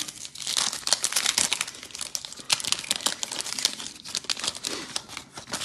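Foil wrapper of an Optic basketball card pack being torn open and crinkled in the hands as the cards are pulled out: a dense, irregular crackling.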